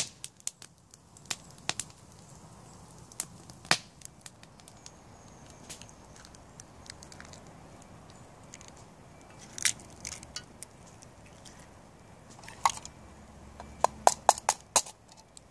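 Scattered sharp clicks and taps, then near the end a quick run of sharp taps as an egg is knocked against the rim of a small metal pot and cracked open.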